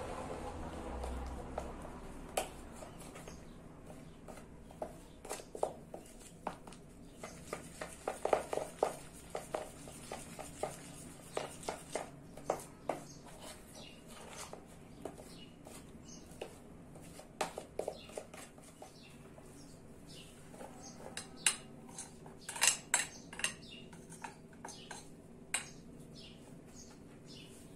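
A metal fork clicking and scraping against a dish in irregular short taps while stirring a flour batter, with a busier cluster of clicks near the end.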